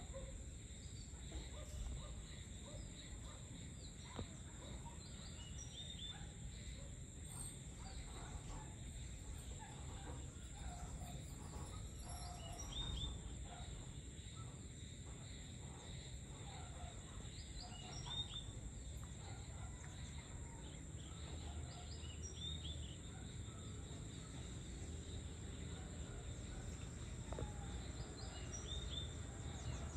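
Faint evening countryside ambience: a steady high insect drone, short bird chirps every few seconds, and a low continuous rumble underneath.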